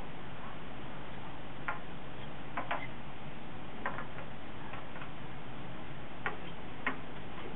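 Wooden chess pieces being moved and set down on a board: about six sharp clicks at irregular spacing, two in quick succession, over steady background noise.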